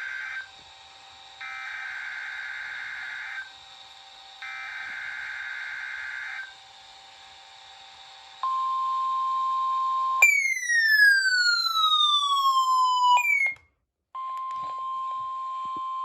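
NOAA Weather Radio test signal: three warbling SAME digital data bursts, each about two seconds long with a second's gap, then the steady 1050 Hz warning alarm tone. About ten seconds in, a loud falling whistle cuts across it, followed by a brief dropout, and then the steady alarm tone resumes.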